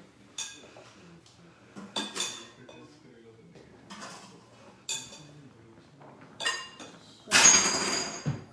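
A glass mixing bowl clinks and knocks as stiff dough is worked by hand in it: about six sharp clinks, each with a short ring. About a second from the end comes a louder rattling scrape that lasts about a second.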